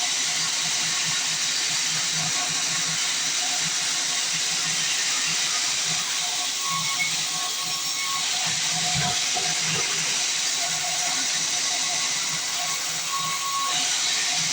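Sawmill band saw cutting through a log, a steady noise without pauses.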